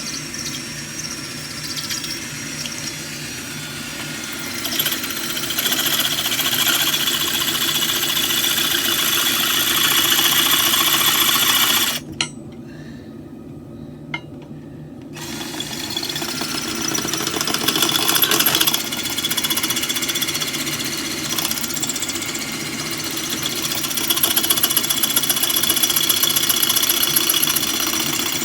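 Power tool running against steel, cutting out for about three seconds near the middle and then starting up again.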